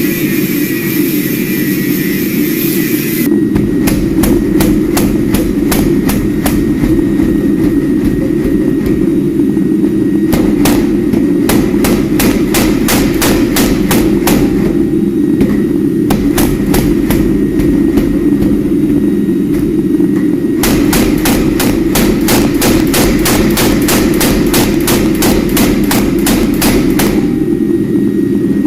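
Rapid, evenly spaced hammer blows on steel, several a second, beginning about three seconds in and easing briefly twice, over the steady roar of a running forge.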